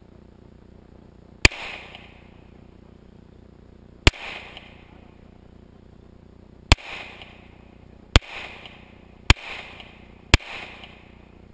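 Six shots from a semi-automatic pistol, each a sharp crack followed by a short echo. The first three come about two and a half seconds apart, then the pace quickens to about a shot a second.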